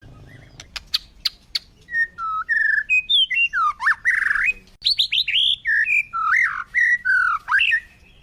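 Flamingos calling: a few sharp clicks in the first second and a half, then a quick run of chirping, squawking calls that slide up and down in pitch, one after another.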